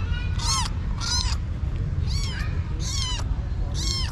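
Kitten meowing repeatedly: about five short, high-pitched meows, each rising then falling in pitch, over a steady low rumble.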